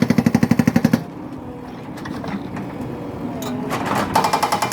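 JCB 435A hydraulic breaker on a JCB 3DX backhoe loader hammering rock in rapid, even blows. It stops about a second in, leaving the machine running quieter, then starts hammering again just before the end.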